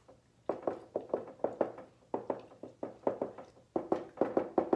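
Dry-erase marker tapping on a whiteboard as electron dots are drawn: a quick run of short taps in small groups, several a second, starting about half a second in.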